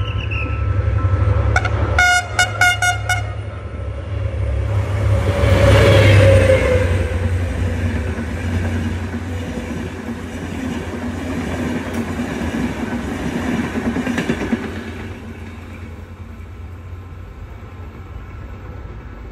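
Egyptian passenger train hauled by a Henschel diesel locomotive passing: the horn sounds in a quick series of about five short blasts, then the locomotive goes by with a deep engine rumble and a falling pitch. The coaches follow with a rolling wheel clatter that fades as the train draws away.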